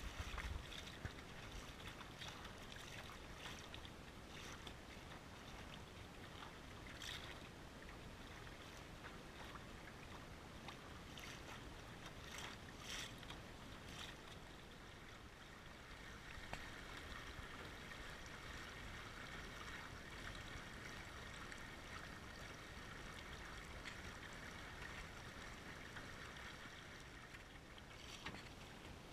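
Quiet water sloshing and hissing along the hull of a small sailing dinghy under way, with a few brief slaps near the middle. From about halfway the hiss of water along the hull grows steadier.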